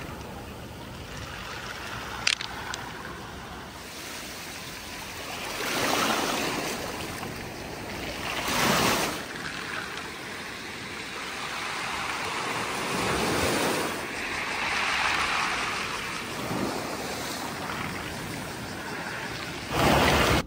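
Sea waves washing in over a pebble beach, the surf swelling and easing several times, with one sharp click about two seconds in.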